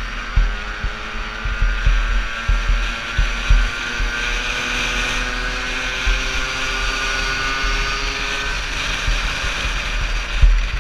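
Yamaha PW50's small two-stroke single engine running hard under race throttle, a steady high engine note that rises slightly in pitch about halfway through. Wind buffeting on the microphone adds low thumps, most around the start and near the end.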